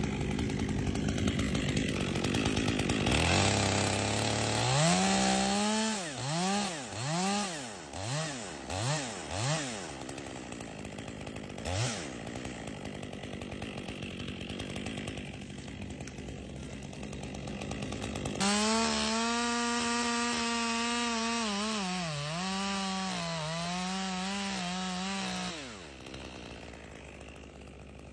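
Stihl MS 201T top-handle two-stroke chainsaw working. It is revved in about six quick blips, then held at high revs for around seven seconds before dropping back near the end.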